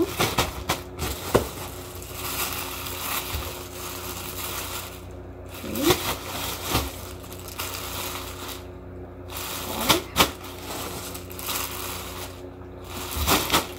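Plastic-wrapped clothing packages crinkling and rustling as they are handled and pulled out of a cardboard box, with several sharp crackles.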